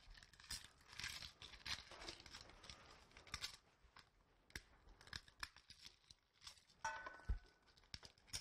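Faint, irregular crinkling and crackling of a garlic bulb's papery skin as it is broken apart and cloves are pulled loose by hand, with a soft thump about seven seconds in.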